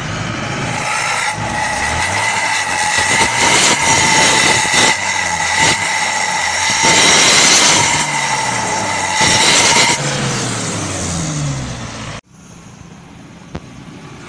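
Isuzu Panther engine revved with a Suos 'jet' exhaust tip held over the tailpipe, giving a loud, steady jet-like whistle over the exhaust. The revs fall away in the last few seconds, then the sound cuts abruptly to a quieter engine.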